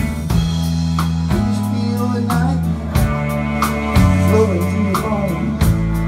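Live rock band playing an instrumental passage: electric guitar over bass and drums, with a lead line of bent notes.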